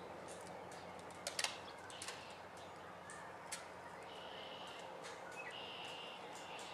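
Birds calling: short high-pitched chirps, two of them near the end, over a faint steady low hum. A few sharp clicks come about a second and a half in, the loudest sounds here, with single clicks around two and three and a half seconds.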